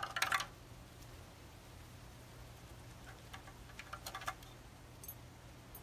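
A short clink of small hard objects right at the start, then a few faint light taps and clicks over a low steady hum.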